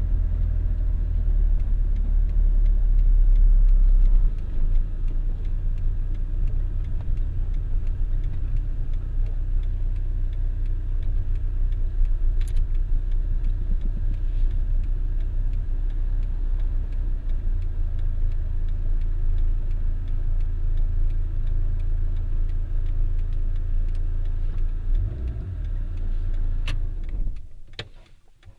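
Inside a moving car: steady low engine and road rumble heard from the cabin, a little louder for the first few seconds. Near the end the rumble dies away suddenly and a few sharp clicks follow.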